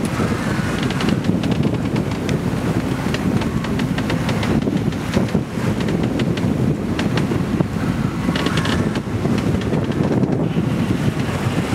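Wind buffeting the microphone aboard a sailboat, with the rush of waves breaking against rocks underneath.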